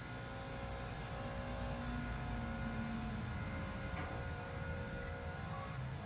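Gas-powered backpack leaf blower running steadily as it blows leaves.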